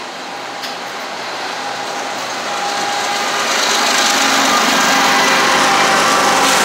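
Freight cars rolling past on the rails, then a GE ES44AH diesel-electric locomotive, running as a mid-train helper, passes close by. Its engine grows steadily louder with a steady hum and whine and is loudest in the second half.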